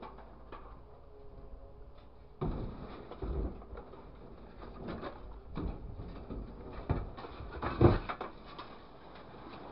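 Grapple truck's hydraulic grapple dropping a load of scrap metal turnings and wire into a steel truck bed: a faint steady hum at first, then from about two and a half seconds in a rattle of scrap metal with a string of clanks and knocks against the steel bed, the loudest near the end.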